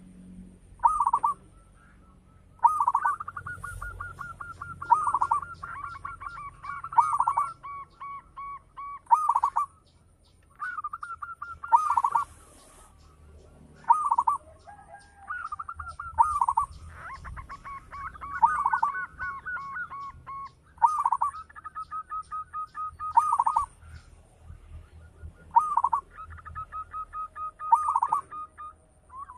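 Zebra doves (perkutut) singing: loud phrases of quick staccato cooing notes repeated every couple of seconds, with a second dove's phrases at a higher pitch overlapping at times. Faint high chirping sounds above them.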